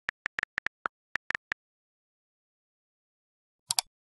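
Keyboard typing sound effect: a quick run of key clicks for about the first second and a half, then silence, then two double mouse clicks near the end.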